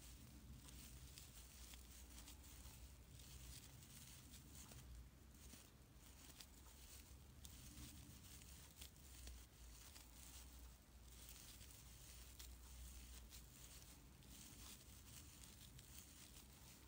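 Near silence: faint rustling and light, scattered ticks of a metal crochet hook working through sparkly acrylic scrubber yarn, over a low steady hum.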